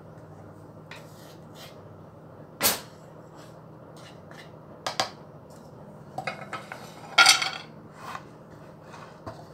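Kitchen utensils clinking and knocking: a metal spoon and a wooden spatula scraping thick tahini in a glass food-processor bowl, in a few separate clicks. The loudest clatter comes a little after seven seconds, as the spoon and spatula are set down in a frying pan.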